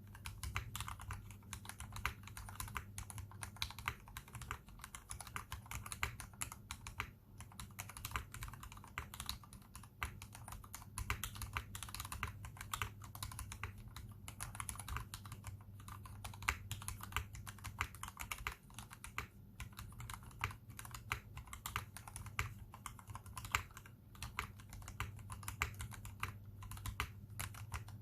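Continuous typing on a KBD67 v2 custom mechanical keyboard with tuned Cherry MX Black Retooled linear switches, a brass plate and PBT doubleshot keycaps. The keystrokes follow each other quickly and unevenly over a steady low hum.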